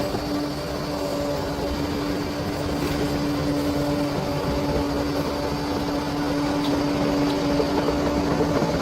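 Large bulldozer's diesel engine running steadily at work, a continuous rumble with a steady droning tone on top.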